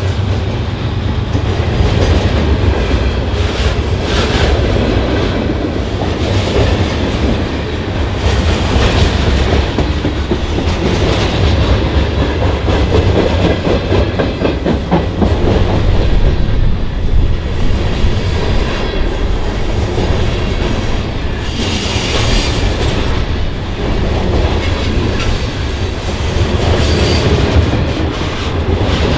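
Freight cars of a CN freight train rolling past steadily, with a heavy rumble and the clickety-clack of wheels over the rail joints. Brief higher wheel screeches come every few seconds.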